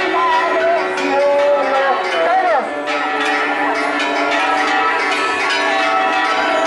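Church bells ringing without pause, several tones sounding together, with people's voices over them in the first few seconds.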